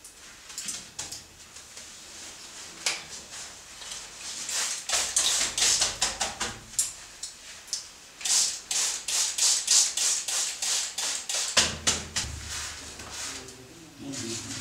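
Quick, repeated tapping and brushing strokes on paper pressed against a carved stone wall while a rubbing is made, in two spells of rapid strokes.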